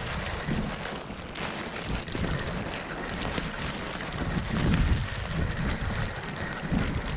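Gusty wind buffeting the microphone over the hiss of steady rain, with a stronger gust about two-thirds of the way through.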